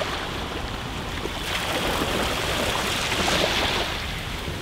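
Steady rushing noise of water and wind, swelling a little in the middle, with no separate distinct sound standing out.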